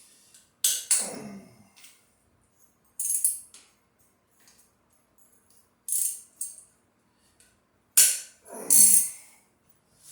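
Metal tools and engine parts clinking and rattling in about five short bursts, loudest near the end, as work goes on at a Chevy small-block's cylinder head.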